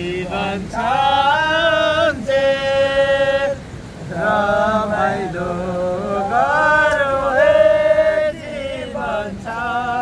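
A man singing unaccompanied in long, held notes that waver slightly, phrase after phrase with short breaths between.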